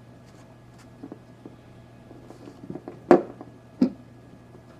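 Handling noise: a few faint clicks, then two short knocks about three seconds in, less than a second apart.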